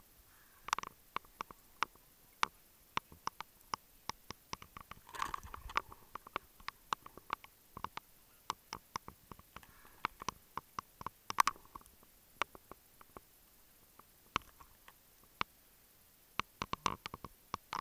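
Underwater sound on a scuba dive: scattered sharp clicks and ticks, several a second and irregular, with a few short rushes and a longer rushing burst about five seconds in.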